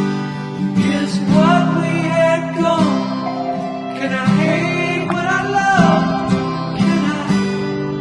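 Background song: a strummed acoustic guitar with a sung melody over it.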